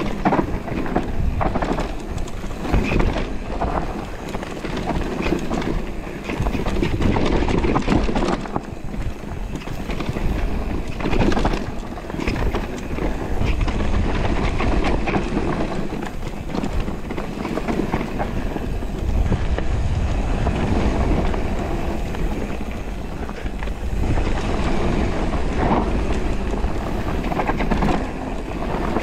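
Knobby tyres of a Radon Deft electric mountain bike rolling over a dirt and leaf-covered trail, with the bike clattering and rattling over bumps throughout. Wind rushes on the microphone as a steady low rumble.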